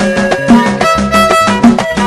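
Lively music with a steady percussion beat under sustained melodic lines, in the manner of a fiddle.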